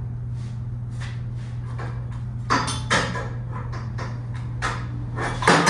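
Metal tubing and tools being handled: scattered light clicks and knocks, two louder clanks about two and a half and three seconds in, and a louder clatter near the end as something is dropped. A steady low hum runs underneath.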